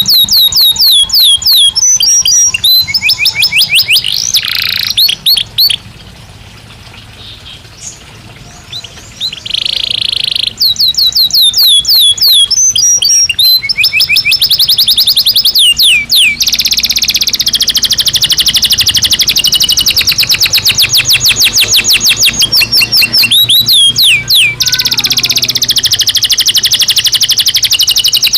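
Belgian canary singing: fast trills of rapidly repeated falling notes. There is a short quieter pause a few seconds in and a brief buzzy note around ten seconds, then long unbroken trills through the second half.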